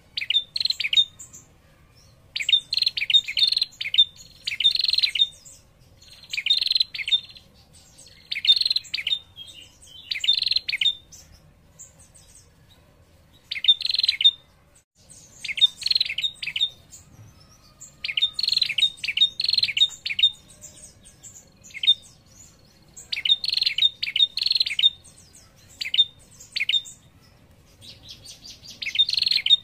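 Female prenjak (tailorbird) giving her rapid, high chattering 'ngetir' trill in short bursts, about one every one to two seconds, with a brief pause near the middle. This is the female's call used to lure a male prenjak into answering.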